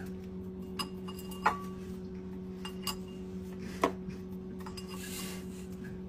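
Glassware and a ceramic bowl clinking on a stone kitchen countertop: about five sharp, separate clinks, a couple of them ringing briefly like glass, over a steady low hum.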